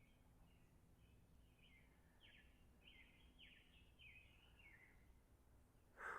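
Faint bird song: a string of short high notes, several sliding downward, running for about five seconds. There is a brief louder sound near the end.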